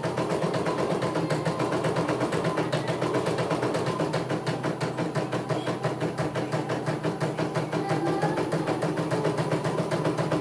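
CNY E900 computerized embroidery machine stitching a design: a fast, even rhythm of needle strokes over a steady motor hum.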